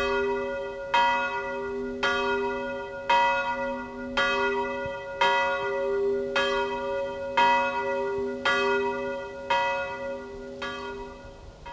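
Church bell ringing for helgmålsringning, the Saturday-evening bell that marks the start of the Sunday rest. It strikes about once a second, eleven strokes, and its ringing carries between the strokes. After the last stroke near the end the ringing dies away.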